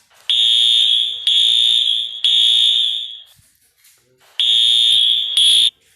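Wheelock AS-24 fire alarm horn sounding in loud, high-pitched blasts: three in a row, a short pause, then two more, the last cut off abruptly near the end.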